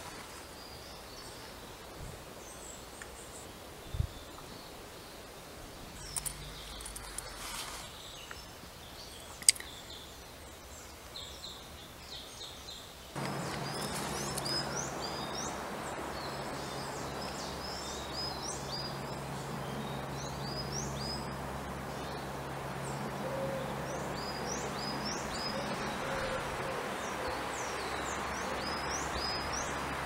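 Small woodland songbirds calling: short, thin, high calls, sparse at first, then many in quick succession from about halfway. From that point a low steady hum runs under them, and a few sharp clicks come in the first half.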